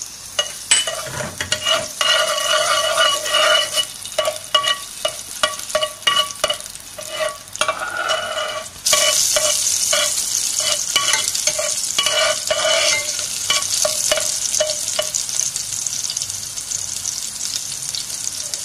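Chopped garlic sizzling in hot oil in a frying pan, with a spoon scraping and stirring against the pan in quick strokes. About nine seconds in the sizzle suddenly gets louder, and the scraping dies away a few seconds later while the sizzling goes on.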